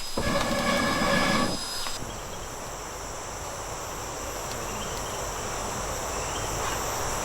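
Insect chorus (crickets and cicadas) with steady high-pitched buzzing. It opens with a loud, pitched droning call that cuts off about a second and a half in.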